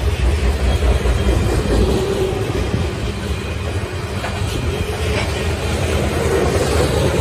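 Coal train's open-top coal cars rolling past, a steady noise of steel wheels running on the rails with faint clicks over the rail joints.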